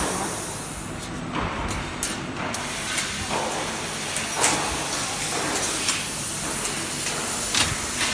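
500 W CNC fiber laser cutting machine at work: a steady hiss of the cut with a few short, sharp ticks scattered through it.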